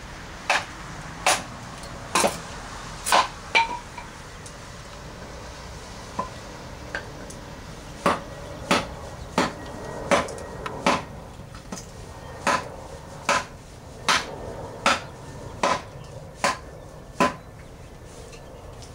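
A wooden baton striking the spine of a SOG Seal Pup Elite knife to drive the small blade through a piece of wood. It makes sharp knocks about one and a half a second: a short run, a pause of a few seconds, then a longer run that stops a little before the end.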